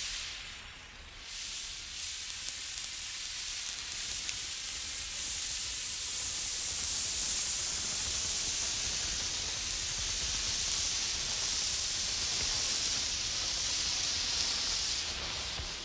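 Burning emergency flare giving a steady sizzling hiss as it is moved about, the hiss brightening and fading slowly, with a few faint crackles; it dips briefly about a second in.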